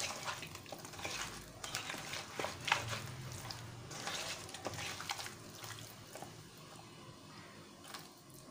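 A hand mixing fish steaks into a thick, wet masala marinade in a stainless steel bowl: irregular wet squelching and slapping, with fingers scraping against the bowl, quieter over the last couple of seconds.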